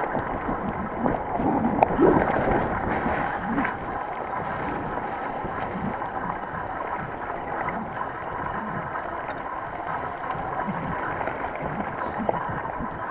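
Mountain bike riding fast along a wet, muddy trail: a steady rush of wind on the microphone and tyres running through mud and water, with a few sharp knocks and rattles from the bike.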